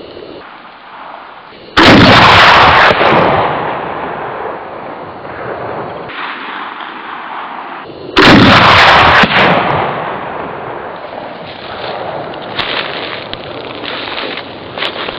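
Two shots from a Sarac 20 mm semiautomatic rifle firing 20×110 mm rounds, about six seconds apart. Each is a sudden blast that overloads the recording, then a long echo fades over several seconds.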